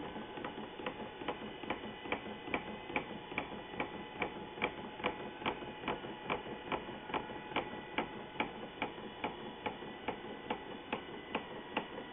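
Mini-lathe and its add-on feed rig, driven by a 12 V windshield-wiper gearmotor, running steadily while a Teflon rod is turned. A steady motor whine goes with a regular tick about two and a half times a second.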